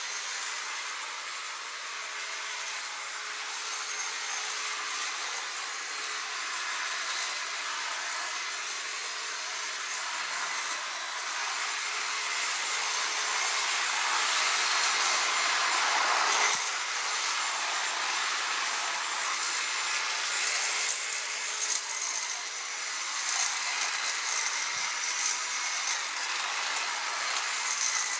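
Electric hedge clippers running steadily, their reciprocating blades buzzing and chattering as they cut through hedge twigs. The sound gets louder towards the middle and then rises and falls a little as the blades bite.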